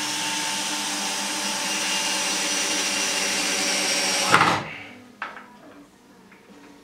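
Hand-held power drill running steadily into a wooden panel for about four seconds with a faint motor whine, then stopping with a sharp knock. A few light clicks follow.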